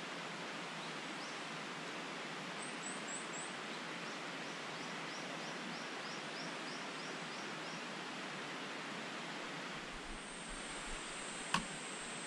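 Steady outdoor background hiss. A few seconds in, a faint bird gives a quick run of short high chirps, about four a second. Near the end a thin steady high whine starts, and there is a single sharp click.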